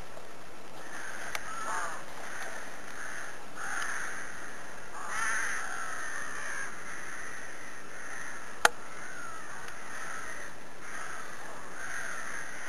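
Crows cawing over and over, with one sharp click about two-thirds of the way through.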